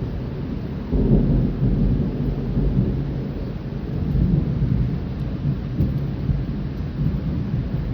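Thunder rumbling through a rainstorm: a deep roll swells about a second in and keeps rolling with several surges, over the steady hiss of falling rain.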